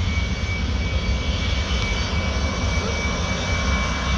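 Airbus airliner's jet engines at high power, a steady rumble with a steady high whine.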